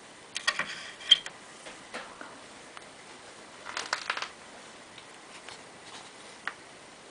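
Light metallic clinks and rattles of small metal parts or tools being handled, in two short clusters, about half a second in and about four seconds in, with a single tick near the end.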